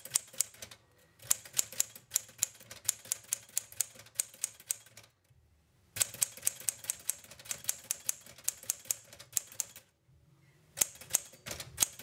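1960s Smith Corona Sterling manual typewriter being typed on: a quick run of sharp key and typebar strikes, several a second, broken by three short pauses.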